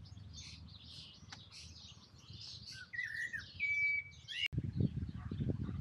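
Small birds chirping and singing in the trees, many short high chirps with a clear whistled note near the middle. About four and a half seconds in, the sound changes abruptly to a low, uneven rumble.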